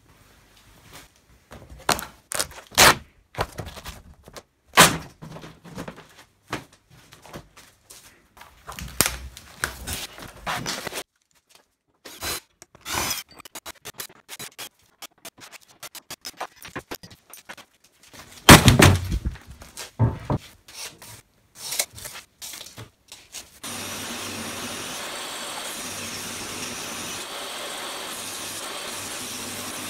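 Knocks, clicks and scrapes of a folding table with metal legs being handled, with one loud thump about two-thirds of the way through. In the last six seconds a table saw runs steadily.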